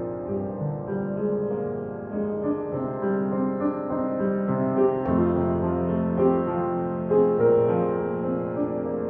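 Upright piano being played: overlapping held notes and chords, with a deeper bass note coming in about five seconds in.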